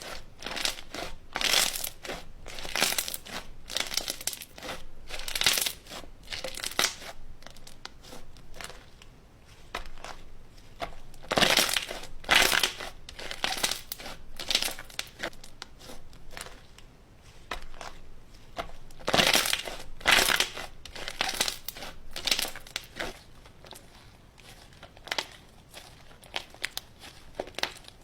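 Slime being squished and kneaded by hand, making an irregular run of crackling squelches, with louder clusters a little before halfway and again about two-thirds of the way through.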